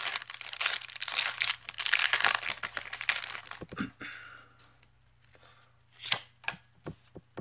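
Foil-lined Pokémon booster pack wrapper crinkling and being torn open for about four seconds, then a few short knocks as the stack of cards is handled.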